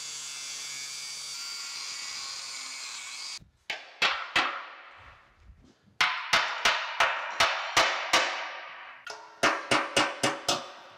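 DeWalt cordless angle grinder with a cutting wheel cutting through a rusted iron bolt, a steady high-pitched grinding that stops suddenly after about three and a half seconds. Then a ball-peen hammer strikes the cut bolt on the iron pan with sharp, ringing metal blows: a few single hits, then two quick runs of several blows a second, driving the bolt out with a punch.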